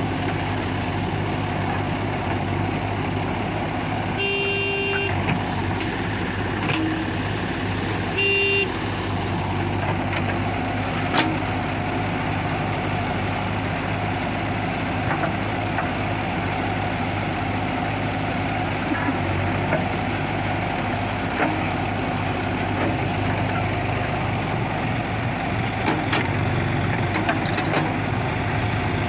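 JCB 3DX backhoe loader's diesel engine running steadily as the backhoe digs and loads soil. A vehicle horn sounds twice, a longer toot about four seconds in and a short one about four seconds later. A few light knocks are scattered through.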